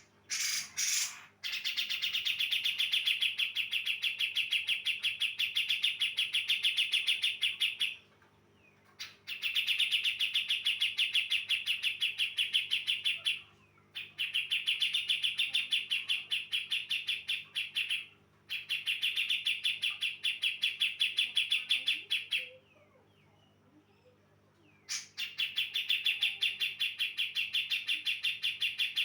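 Female cucak jenggot bulbul calling in five long bouts of fast, evenly repeated chattering notes, each bout lasting about four to six seconds with short pauses between. It is a lure call meant to make males answer.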